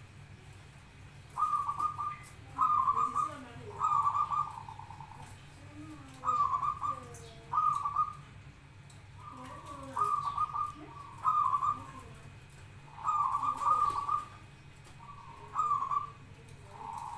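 Zebra doves (perkutut) cooing: short, rapidly trilling coo phrases, a new one every second or two.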